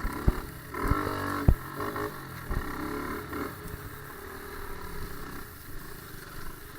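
A mini bike's small engine running, with a brief rise about a second in and a few sharp knocks in the first three seconds.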